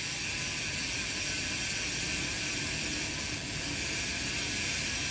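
Bicycle freewheel ratcheting steadily as the cranks are turned backward, the oiled chain running through a wiping rag.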